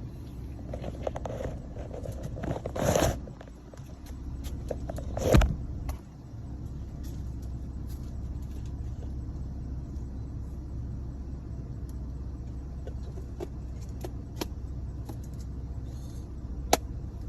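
Handling noise of a 1973 Dynamic handheld car vacuum being emptied: scattered plastic clicks and rattles with two louder knocks about three and five seconds in and a sharp click near the end, over a steady low hum.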